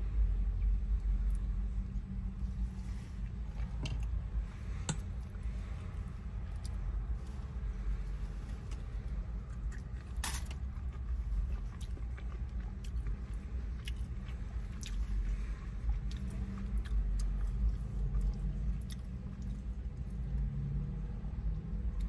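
Close-up chewing and biting of a burrito, with small wet mouth clicks and one sharper bite about ten seconds in, over a steady low rumble inside the car.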